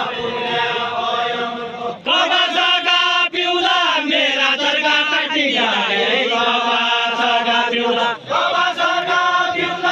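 Deuda folk song from far-western Nepal, sung in a chanting style: long sung phrases held on steady notes, broken by short pauses about 2, 3, 5½ and 8 seconds in.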